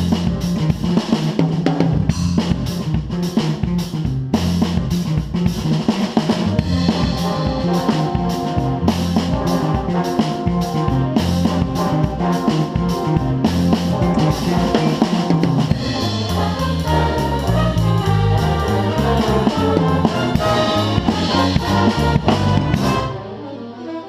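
Big band playing a jazz chart, heard from beside the drum kit: busy snare, bass drum and cymbal hits over a bass line, with the brass section coming forward later on. Near the end the drums and cymbals stop and the band drops quieter.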